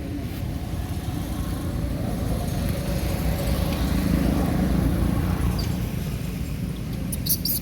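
Low rumble of road traffic that swells to a peak about four seconds in and eases off, with a few sharp clicks near the end.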